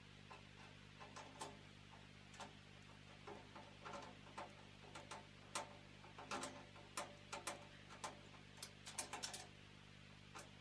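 Scattered light clicks and taps from hands handling a PC tower case and its hardware, sparse at first and busier in the second half, over a faint steady hum.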